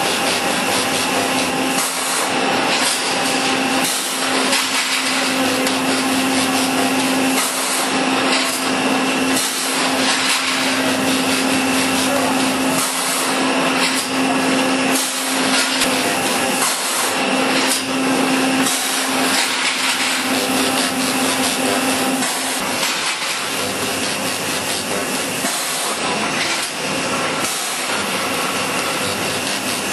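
Automatic steel wire mesh welding machine running, its resistance welding heads firing across the mesh with a dense, irregular clatter and hiss. A steady hum runs under it and stops about three-quarters of the way through.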